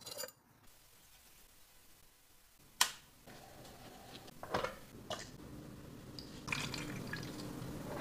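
Cooking sounds: a sharp click of cookware about three seconds in, then liquid sounds and a few knocks of utensils against a saucepan as milk tea is prepared. The liquid noise gets louder near the end.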